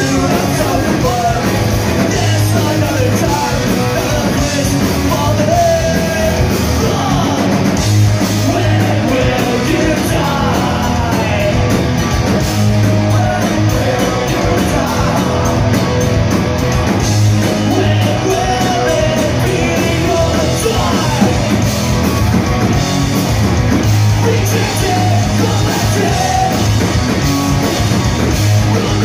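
Live punk rock band playing loud: distorted electric guitars, bass and drums, with a singer shouting the vocals over them.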